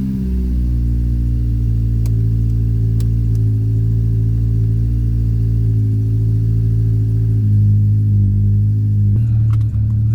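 Old car's engine droning through a new aftermarket exhaust while cruising at a steady speed, the note holding nearly one pitch with a small step down about seven seconds in. A few faint clicks sound over it.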